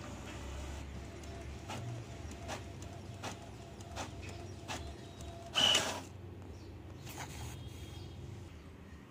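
Brother DCP-T310 inkjet printer working through a print job: its motors run with a series of short clicks less than a second apart, and a louder burst of mechanical noise a little past halfway as the page feeds through.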